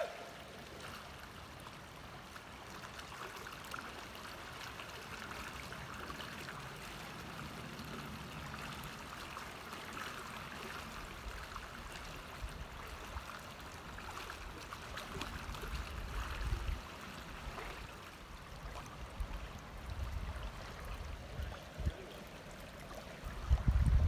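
Fast river water rushing steadily over riffles. In the second half there are intermittent low rumbles on the microphone, the strongest near the end.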